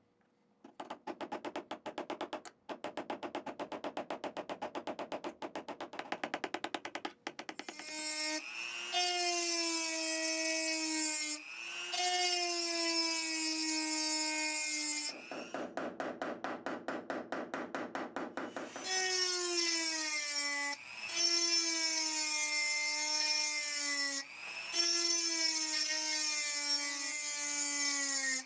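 Fast rasping pulses, then a small high-speed rotary tool whining in bursts of a few seconds, its pitch sagging slightly in each burst, with another stretch of rasping pulses in the middle.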